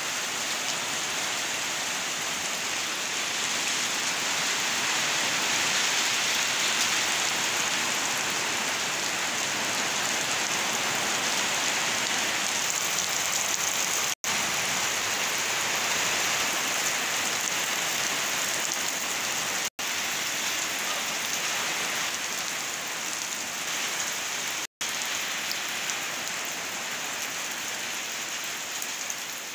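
Heavy rain pouring down steadily, a dense even hiss of drops on muddy ground, with three very brief gaps where the sound cuts out.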